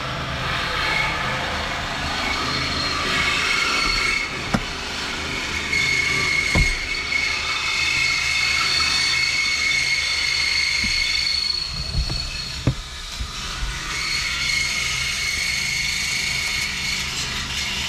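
A high-pitched mechanical whine that comes and goes in stretches of a few seconds, over a steady low hum, with a few short knocks.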